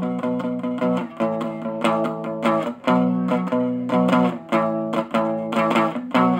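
Intro music played on guitar: short strummed and plucked chords in a quick, even rhythm.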